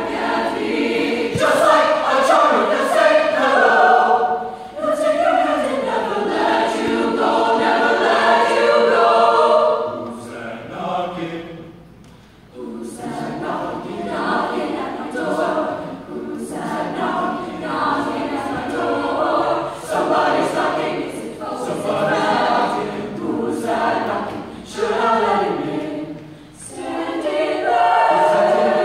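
Mixed choir of teenage voices, sopranos, altos, tenors and basses, singing together in parts, with a short quiet break between phrases about twelve seconds in.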